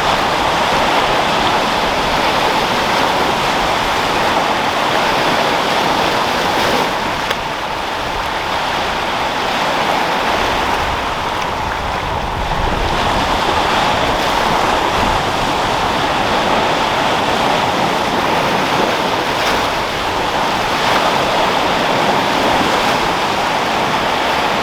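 Sea surf washing in a steady, continuous rush, with wind.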